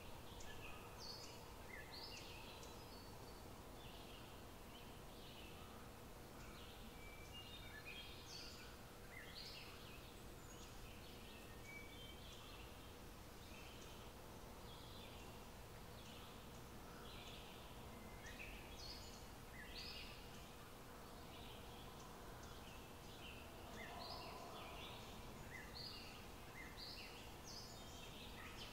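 Faint background of birds chirping, many short calls scattered throughout, over a low steady room hiss and hum.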